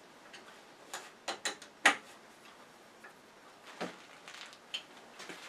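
Metal clicks of a chuck key turning in a lathe scroll chuck as its jaws are tightened onto a wooden blank: several sharp clicks in the first two seconds, another about four seconds in, then a few lighter ticks.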